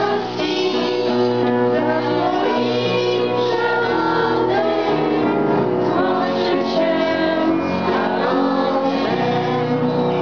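Group of children singing a song together in held, sustained notes.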